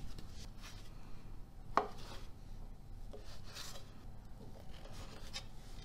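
Dough scraper cutting through soft bread dough on a countertop, with one sharp tap of the scraper on the counter about two seconds in, then softer scraping and rubbing of the dough.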